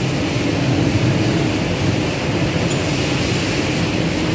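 High-pressure washer pump and motor running steadily, a loud, even mechanical noise with a low hum.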